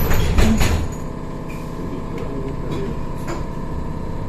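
Inside a BKM 321 trolleybus: a steady hum with a thin steady whine, a short burst of knocking and rattling in the first second, and a few lighter clicks after.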